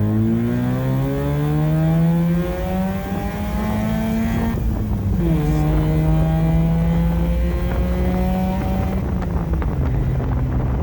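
Rotary-engined Austin-Healey Sprite driving through a new Flowmaster Hush Power muffler, with a little deeper tone: the engine climbs in pitch, drops at a gear change about five seconds in, holds steady, then eases off near the end. Wind noise over the open car.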